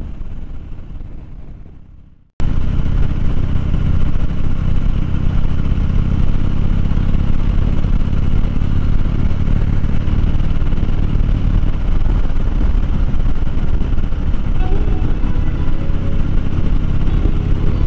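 Harley-Davidson Dyna Fat Bob's V-twin engine running steadily at cruising speed, with road and wind noise. The sound fades away over the first two seconds, then cuts back in suddenly and runs on evenly.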